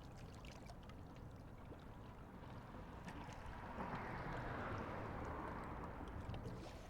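Lake water lapping faintly against the bank, swelling into a louder wash for a couple of seconds around the middle.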